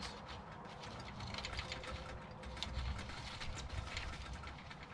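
Old rope rigging lines being handled and pulled off a metal sailboat mast by gloved hands: rustling with many small clicks and ticks, over a low steady rumble.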